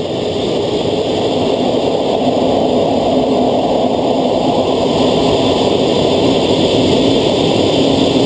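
Jet engine and airflow noise inside an F/A-18 cockpit in flight: a loud, steady rushing noise with a low hum tone held through it. It swells over the first couple of seconds, then stays even.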